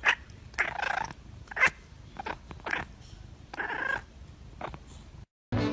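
A cat making a string of short calls, about seven in five seconds, before the sound cuts out near the end.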